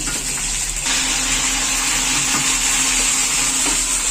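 Hot oil sizzling around a large whole fish frying in a wok; the sizzle gets louder about a second in, and a steady low hum joins it.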